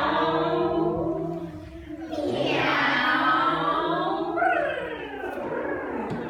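A group of voices singing together without instruments, sliding up in pitch and then down again in long glides.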